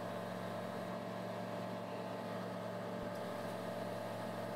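Steady engine and propeller drone of a TL Ultralight Sting in level flight, heard inside the cockpit, with an even tone that does not change.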